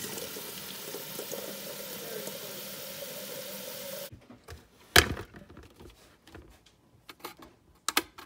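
Kitchen tap running into a stainless electric kettle as it fills, the water cutting off suddenly about four seconds in. About a second later comes one loud knock, and near the end a few lighter clicks and knocks as the kettle is handled.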